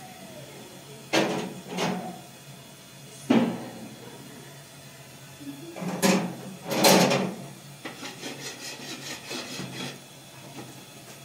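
Several knocks and scrapes of objects being handled, then a run of quick, even rubbing strokes, about five a second.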